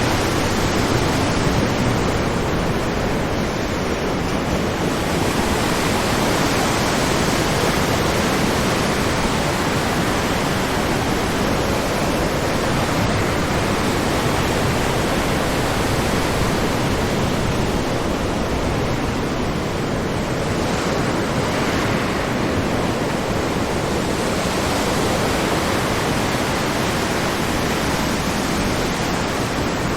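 Ocean surf: waves breaking in a continuous, dense wash, swelling and easing slowly every several seconds.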